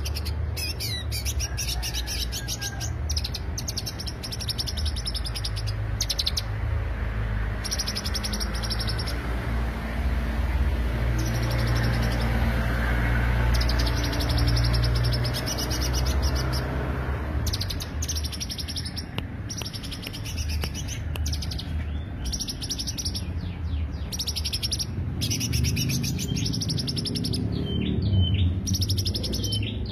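Green leafbird (cucak hijau) singing: long runs of very rapid, high trilled phrases broken by brief pauses, with a few short chirps near the end, over a steady low rumble.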